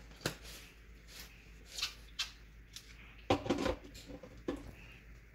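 Hard plastic knocks and clatter from a Ninja blender's single-serve cup being handled and fitted onto its motor base, a few separate knocks with the loudest cluster a little past halfway.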